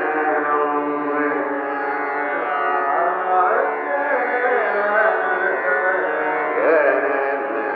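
Hindustani classical vocal in Raag Lalit: a male voice sings gliding, ornamented phrases over a steady drone.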